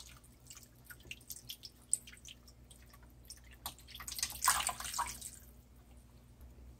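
Water poured from a plastic pitcher into a slow cooker's stoneware crock over a beef roast: a thin stream trickling and splashing, heavier for about a second past the middle, then easing off as the pouring stops.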